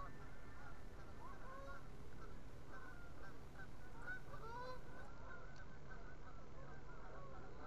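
A flock of geese honking at a distance, many short calls overlapping without a break.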